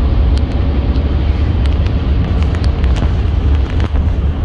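Steady rumble of road and wind noise inside the cab of a Rivian R1T electric pickup travelling at high speed, heaviest in the low end, with a few faint ticks.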